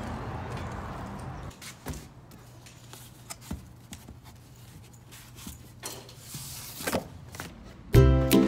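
A few faint clicks and knocks as cardboard Priority Mail shipping boxes are handled, over quiet room tone. Background music starts abruptly near the end and is the loudest sound.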